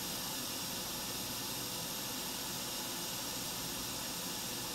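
Steady hiss of a hot air rework station blowing onto a circuit board to heat a small capacitor for removal.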